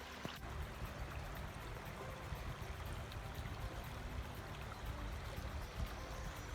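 Creek water running, a steady rushing noise.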